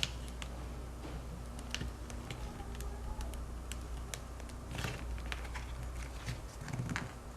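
Scattered light clicks and scraping as a business card is run along the edges of a cracked iPhone 6 screen, prying the glass off the LCD's adhesive, over a steady low hum.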